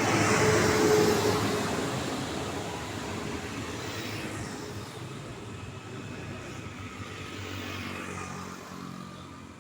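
A road vehicle passing close by at speed, loudest about a second in, then fading away, with more traffic rising again near the end.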